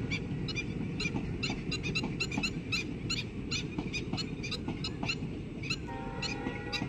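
Birds chirping in quick, repeated short calls, about three or four a second, over a steady low rumble. A held tone of several notes comes in about six seconds in.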